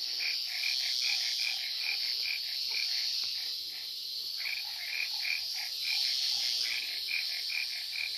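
Marsh night chorus: frogs calling in a run of short, evenly spaced notes, about three a second, with a brief lull midway, over the steady high chirring of crickets.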